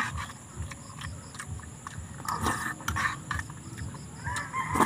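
Metal spoons clinking and scraping in a metal pan of rice, with chewing, over a steady high insect drone. A chicken calls near the end.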